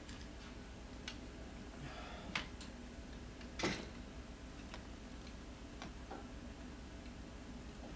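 A few scattered light clicks and knocks of things being handled, with one louder knock about three and a half seconds in, over a low steady hum.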